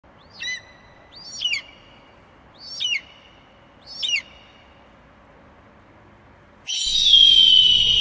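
Bald eagle calling: four short, high, wavering chirps about a second apart, then, near the end, a louder, long high call that slides slowly downward.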